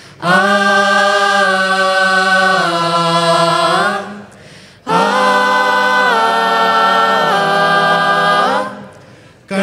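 Mixed-voice group singing a cappella in harmony: two long held chords of about four seconds each, the notes shifting partway through each chord, with a short break between them.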